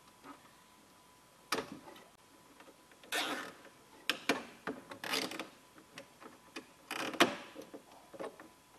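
Zip ties being pulled tight, their teeth ratcheting through the lock in a few short raspy pulls, with sharp clicks of handling in between.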